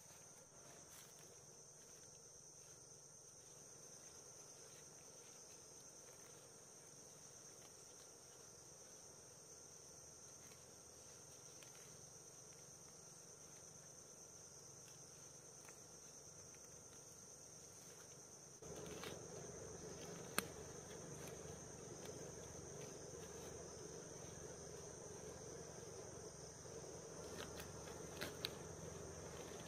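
Faint, steady insect chorus: a continuous high-pitched drone. About two-thirds of the way in, a low rustling noise grows louder underneath it, with a few sharp clicks.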